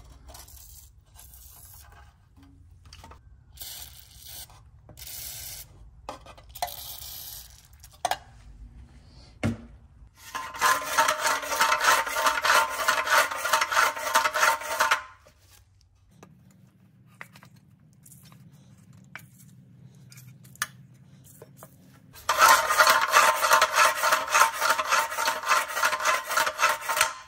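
Hand-pulled recoil starter from a Briggs & Stratton 6B-SF engine, its rope drawn out and rewound with a loud rasping rub in two stretches of about five seconds each. The spring has just been freshly lubricated. A few short spray hisses come earlier.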